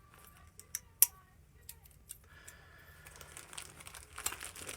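Plastic packaging crinkling and rustling as small items are packed into a first aid kit, growing from about two seconds in, after two sharp clicks about a second in.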